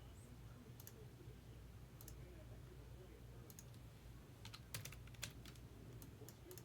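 Faint computer keyboard typing and clicking: scattered keystrokes, with a quick run of louder ones a little past the middle, over a faint low hum.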